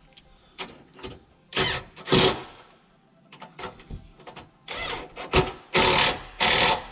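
Cordless power tool run in several short bursts, driving in new bolts: two near the start of the second half-second stretch, then a tighter cluster of bursts near the end.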